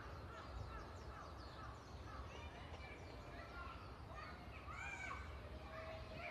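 Several birds calling at once: a busy run of short, high chirps and arched rising-and-falling calls that overlap throughout.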